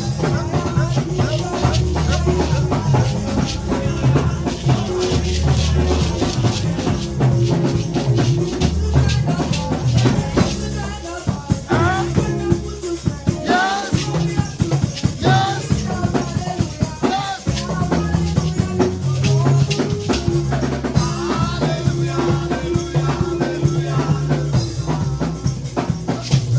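Live praise music with a drum kit and shakers over a sustained bass line, and voices singing in places.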